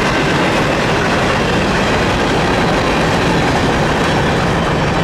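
Freight train cars (boxcars and covered hopper cars) rolling past: a steady, loud rumble and rattle of steel wheels on the rails.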